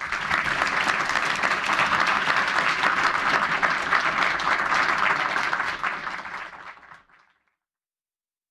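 Audience applauding with dense clapping that fades out about seven seconds in.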